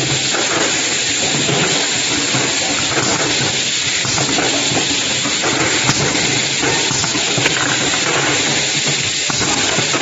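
Steady loud hiss and running noise of a semi-automatic vacuum perfume filling and pneumatic crimping line, with a few faint knocks.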